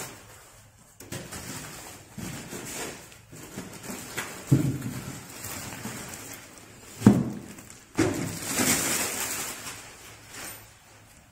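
Cardboard box and plastic-wrapped bookshelf panels being unpacked: plastic wrapping and cardboard rustling and scraping, with two sharp knocks of parts against the box, the second the loudest, and a longer stretch of rustling near the end.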